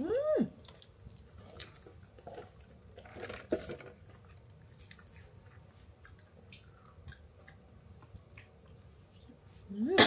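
A person eating, with soft chewing and small clicks, in a small room. A short hummed 'mm' comes at the start and another vocal sound comes near the end.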